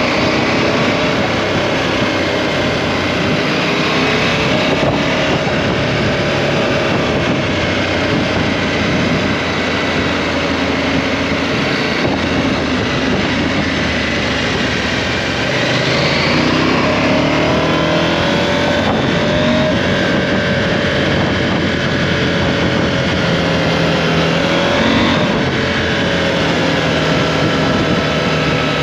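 KTM 790 Adventure's parallel-twin engine running under way. Its pitch rises and falls with the throttle and gear changes, climbing about halfway through as the bike accelerates, over steady wind rush.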